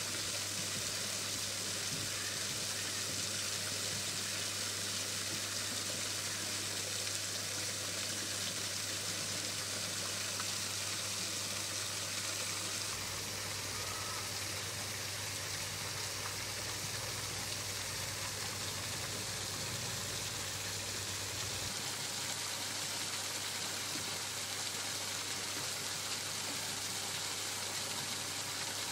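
Steady hiss-like background noise with a low hum underneath, no clear animal calls or distinct events.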